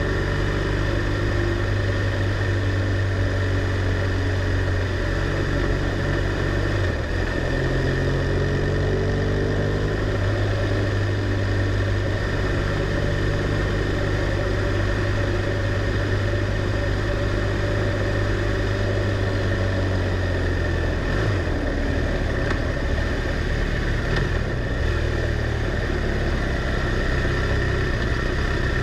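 BMW R1200R LC's liquid-cooled boxer twin running under way at a steady cruise, with wind rushing past the helmet camera. The engine note shifts to a new steady pitch about 7 seconds in and again about 21 seconds in, rising briefly after the first change.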